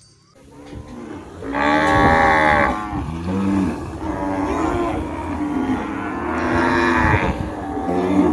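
Cattle mooing: several long, overlapping moos, the loudest about two seconds in and another strong one near the end.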